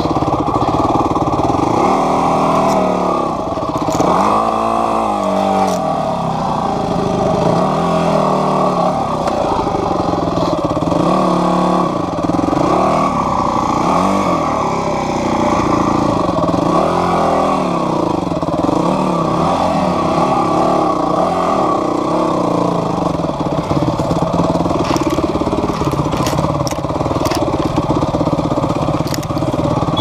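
Yamaha WR250F's single-cylinder four-stroke engine, its revs rising and falling over and over as the dirt bike is worked slowly over rocks at low speed. A few sharp clicks near the end.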